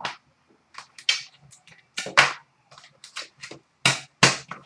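Hands opening an Upper Deck hockey card box and handling its contents: a string of irregular short scrapes, taps and clicks of cardboard and plastic, loudest about two seconds in and again near the end.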